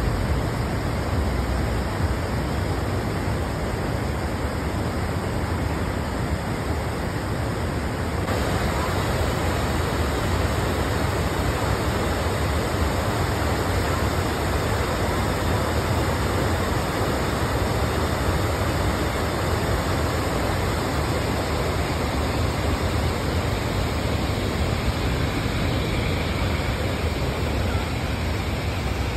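Steady rush of river water pouring over a stepped weir.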